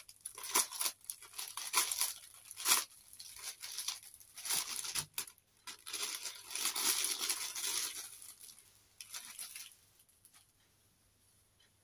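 A clear plastic packaging bag being torn open and crinkled as a folded piece of fabric is pulled out of it, in irregular bursts that stop about ten seconds in.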